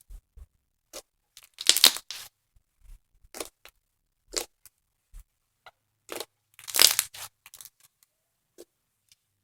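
Thick foam slime being squeezed and stretched by hand, giving irregular crackling pops, with two louder runs of crackles about two seconds in and again around seven seconds.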